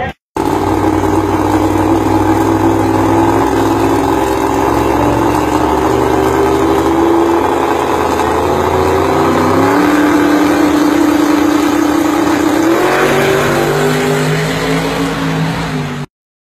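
1957 Chevrolet drag car's engine running loud and steady at a held speed, its pitch stepping down about two-thirds of the way through and back up a few seconds later; the sound cuts off abruptly near the end.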